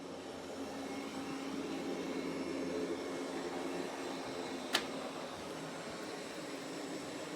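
Roborock Qrevo S robot vacuum running, a steady whirring hum from its suction motor and brushes, with a single sharp click a little past halfway.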